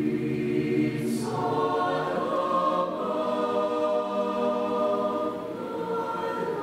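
Mixed choir of women's and men's voices singing slow, held chords, moving to a new chord about a second in, again near the middle and once more near the end, with a brief sung 's' hiss just before the first change.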